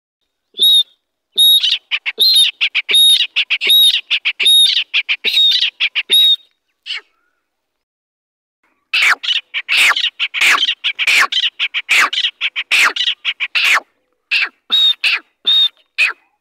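Young grey francolin (teetar) chicks calling: a run of high, sharp chirps, many with a clear whistled note, then a pause of about two seconds followed by a burst of rapid, overlapping chirping and a few more calls near the end.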